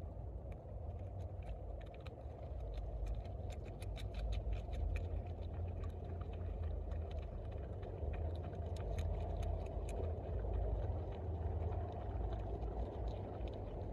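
Beaver chewing on a leafy twig in the water: irregular crisp clicks and crunches, bunched about three to five seconds in and again near ten seconds, over a steady low rumble of wind on the microphone.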